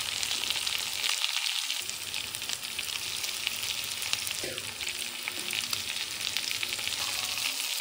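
Fish masala gravy sizzling steadily in a hot metal kadai, a fine crackling hiss, as a metal spatula turns pieces of fried rabbitfish into it.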